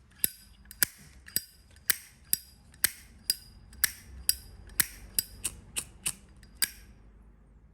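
A brushed-chrome brass Zippo lighter's hinged lid snapped open and shut over and over, about fifteen sharp metallic clicks roughly every half second, each with a short ring, stopping near the end.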